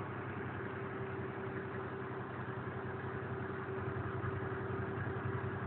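Semi-truck's diesel engine and road noise heard from inside the cab: a steady, even drone with a constant hum tone running through it.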